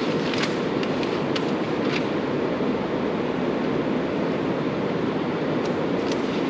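Steady low rushing room noise, with a few faint crisp crackles of a paper sheet being handled in the first two seconds and again near the end.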